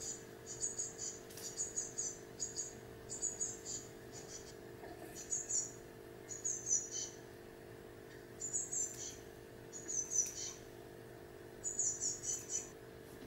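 Blue tit nestlings inside the nest box giving high-pitched begging chirps in quick clusters of half a second or so, with short pauses between them, over a steady low hum.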